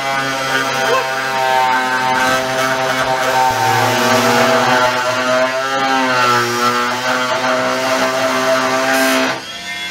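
Cordless drill running continuously with a steady whine, its pitch sagging twice as it bogs under load in the wood, then cutting off shortly before the end.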